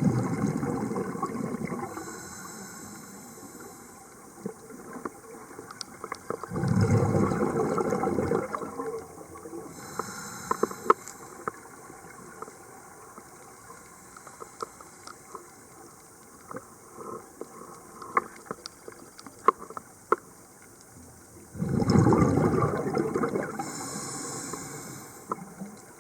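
Scuba diver breathing through a regulator underwater: three long exhalations, each a gurgling rush of bubbles lasting a couple of seconds, at the start, about seven seconds in and about twenty-two seconds in, each followed by the short hiss of an inhalation through the regulator. Scattered sharp clicks sound between breaths.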